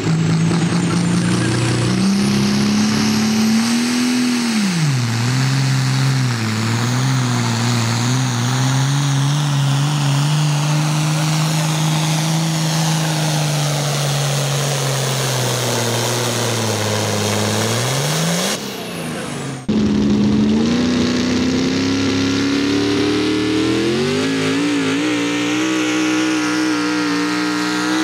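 A turbocharged International Harvester tractor's engine running hard under load as it pulls the sled. Its pitch drops sharply about four seconds in as it bogs down, then holds steady. After a cut about two-thirds of the way through, a modified pickup truck's engine runs hard on its pull, climbing in pitch near the end.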